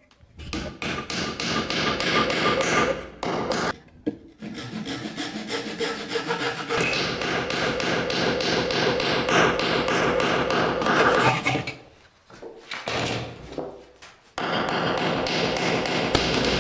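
Wood being worked by hand in runs of quick rubbing, scraping strokes, broken by short pauses about four, twelve and fourteen seconds in.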